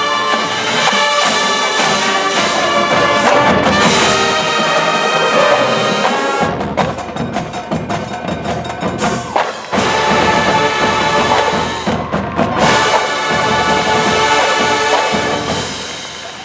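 Marching band playing, brass chords over percussion, with a stretch of mostly percussion about halfway through before the full band comes back in.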